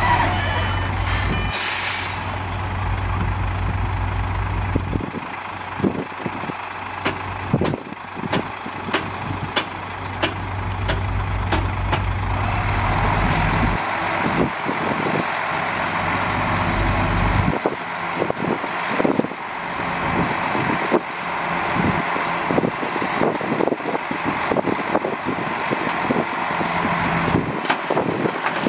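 Diesel engines of heavy earthmoving machines (dump truck and bulldozer) running, with frequent clanks and knocks. A short air hiss comes about two seconds in. The deep engine hum falls away a little past halfway.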